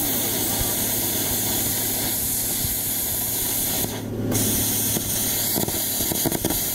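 Cutting torch hissing steadily as it cuts through the steel of an excavator bucket, with a brief drop in the hiss about four seconds in as the cut pauses.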